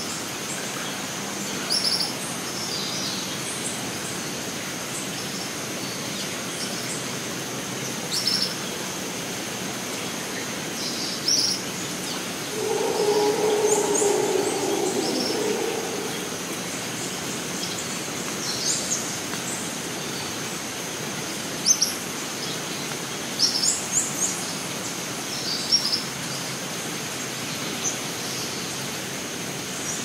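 Tropical rainforest ambience: a steady high insect drone with short bird chirps scattered throughout, and a low drawn-out call lasting about three seconds near the middle.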